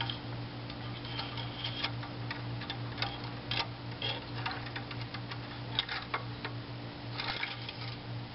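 Light clicks, taps and scrapes of an engine oil dipstick being handled and wiped with a rag, coming in small clusters, over a steady low hum.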